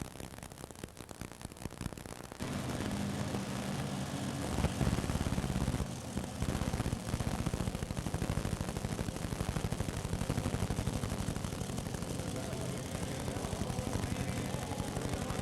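Modified pulling tractor's engine running hard with a fast, rattling firing beat. It comes in suddenly about two and a half seconds in and stays loud.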